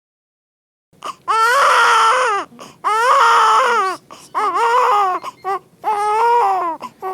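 Newborn baby crying, starting about a second in: about five loud wails, each a second or so long with short catches of breath between, each dropping in pitch at its end.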